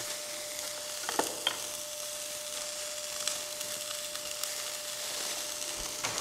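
Riced cauliflower sizzling in sesame oil in a skillet on low heat: a steady hiss with a few light clicks.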